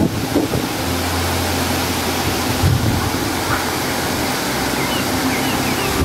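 Steady rushing of the shrine's perennial stream, water pouring and running over the stone and floor. A few faint high chirps come through near the end.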